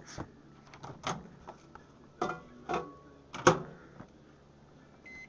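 Several knocks and clicks of handling at a microwave oven, the loudest a sharp click about three and a half seconds in as the door is shut. Near the end comes one short electronic beep from the microwave's keypad.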